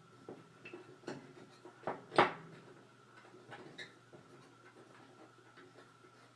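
Light clicks and taps of a circuit board and its components being handled and turned in a PanaVise board holder, the loudest tap a little over two seconds in.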